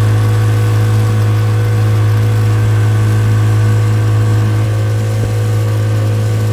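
Outboard motor running steadily at speed, pushing a small boat along: a loud, even low hum with the rush of the wake over it.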